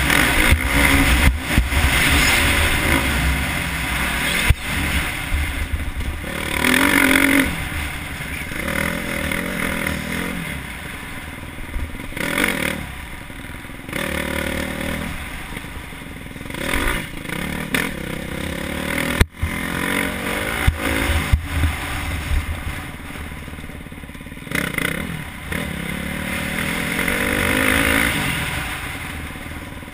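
KTM 350 SX-F four-stroke single-cylinder motocross engine, heard from the rider's helmet, revving hard and falling off again and again through gear changes and off-throttle stretches. A few sharp knocks and clatter come from the bike over the rough track, one loud one about two-thirds of the way through.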